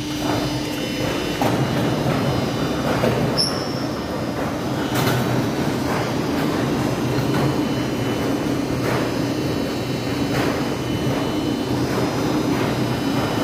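Roll-forming machine running as it presses a rib-type corrugated steel roofing sheet: a steady motor hum with metal rattling, scraping and occasional clanks as the sheet feeds out.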